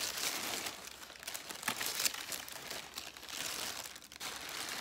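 Thin clear plastic bag crinkling and rustling as it is handled and squeezed, with a single short tick about two seconds in.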